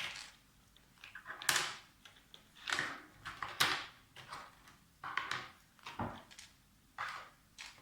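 Plastic clicking and scraping as mechanical keyboard stabilizers are worked loose and pulled out of the plate, in a string of irregular short scrapes and clicks.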